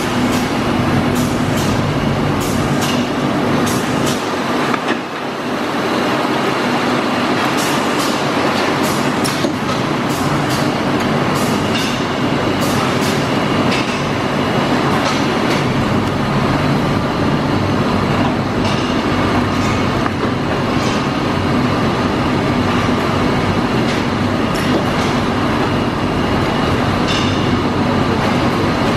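Tromp/Autobake cupcake and muffin production line running: a steady machine hum with frequent irregular clicks and clatter from the conveyors.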